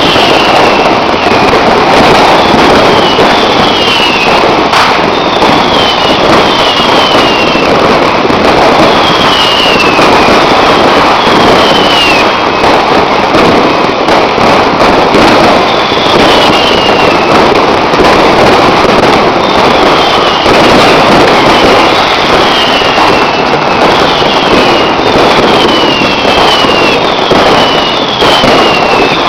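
Fireworks and firecrackers going off in a dense, unbroken crackling barrage, very loud throughout. Short whistles falling in pitch cut through it again and again.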